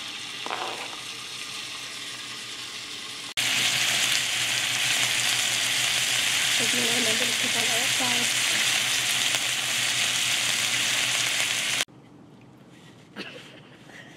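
Diced raw chicken sizzling in hot oil in a nonstick frying pan as it is tipped in and stirred with a wooden spoon, a steady hiss that jumps louder about three seconds in. The sizzle cuts off abruptly about two seconds before the end, leaving quiet room sound with a single click.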